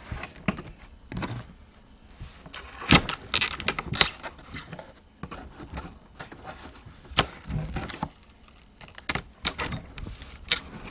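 A knife cutting through packing tape along the seam of a cardboard box, with irregular scrapes, crackles and sharp knocks as the cardboard is handled and the flaps are worked open.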